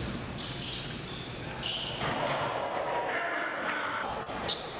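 Basketball being dribbled on a hardwood gym floor, with short high sneaker squeaks and the talk of the crowd echoing in the gym, the voices swelling about halfway through.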